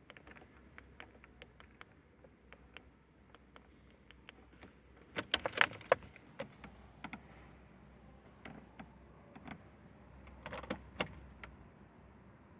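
Car keys jangling on a keyring and clicking in a 1999 Opel Vectra B's ignition, with two louder bursts of rattling about five and ten seconds in. No engine starts.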